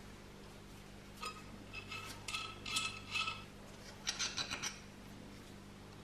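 Metal parts of an antique coffee grinder scraping and ringing against each other as its housing and burr shaft are taken apart. This is followed about four seconds in by a quick run of about six sharp clicks.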